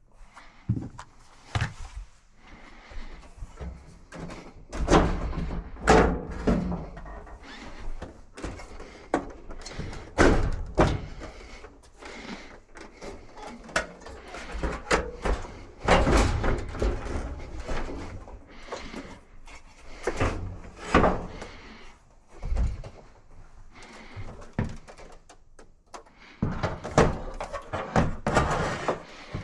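Irregular knocks, clunks and scraping of dryer parts and tools being handled while the dryer is worked on.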